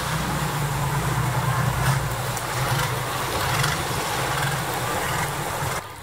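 Long-tail boat engine running steadily under way, a low hum with wind and water noise over it, dropping off suddenly near the end.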